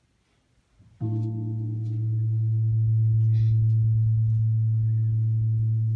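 A deep ringing metal tone, struck with a soft mallet about a second in. It swells, holds steady for about five seconds, then begins to fade.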